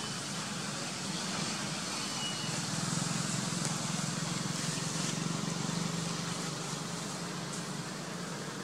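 A steady low engine hum that swells a little midway, over a steady background hiss.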